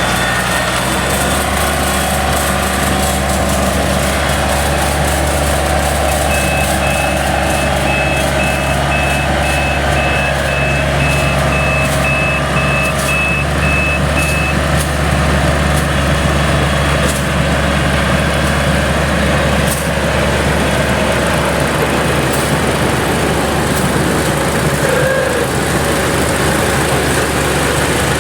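Yanmar GC333 rice combine running steadily at working speed. From about six seconds in, a high electronic warning beep sounds about twice a second for roughly eight seconds, then stops.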